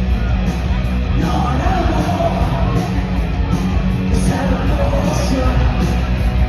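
Punk rock band playing loud and live, with bass, guitars and drums, and a singer yelling over them.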